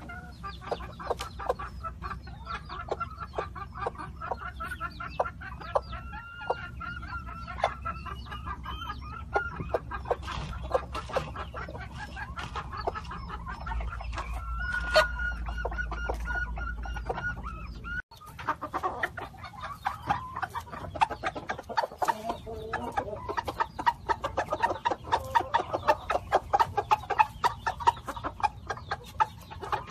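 Chickens clucking and calling, a dense run of short calls with a few longer held notes. The sound breaks off abruptly about two-thirds of the way through and resumes with busier clucking.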